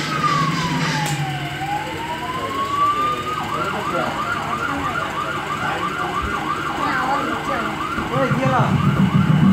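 Electronic siren: a slow wail that falls and rises again, then switches to a rapid yelp of about three to four warbles a second for several seconds, over a background of crowd voices.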